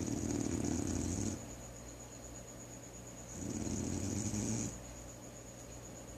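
Snoring: two snores about three seconds apart, each lasting a little over a second.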